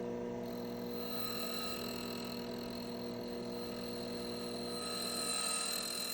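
Steady electrical hum made of several fixed tones, with a thin high-pitched whine joining about half a second in and swelling slightly near the end.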